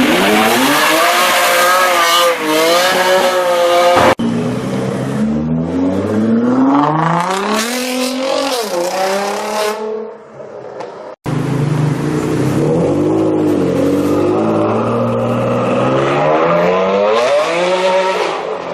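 Mercedes-AMG V8 revving hard and accelerating, the pitch climbing and falling repeatedly, with tyres squealing as it does a burnout. The audio breaks sharply about four and eleven seconds in, where separate takes are cut together.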